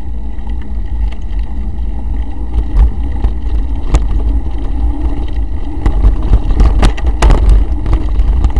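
Mountain bike rolling along a bumpy dirt forest trail, heard from a camera mounted on the bike: a steady low rumble of wind and vibration with sharp rattles and knocks from the bike going over bumps, coming more often from about six seconds in.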